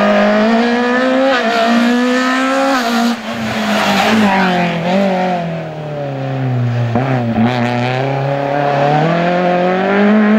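Race car engine revving hard as the car is driven through a cone slalom, its pitch climbing under acceleration and falling as the driver lifts and brakes for the chicanes. The revs drop lowest about seven seconds in, then climb again.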